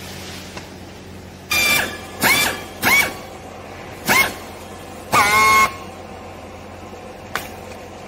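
Hand strapping tensioner squealing as green plastic strap is pulled tight around a compressed bale of clothes: five short squeaks, each dipping in pitch and then levelling, the last about half a second long, over a steady low hum.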